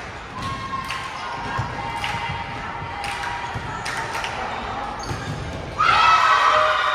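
A basketball bouncing on a gym floor, about one bounce a second. Just before six seconds in, the crowd breaks into loud cheering and yelling.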